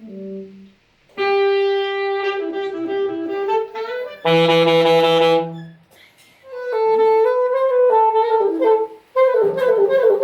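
Saxophone and other wind instruments playing: a long held note, a short loud blast with a low note beneath it, then short melodic phrases with brief pauses between them.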